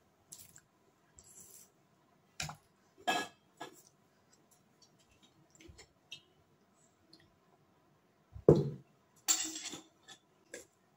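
Fork clinking and scraping against a foil-lined plate of chow mein, with scattered light clicks. Near the end comes the loudest sound, a heavier knock with a dull thud, followed by a short rustle.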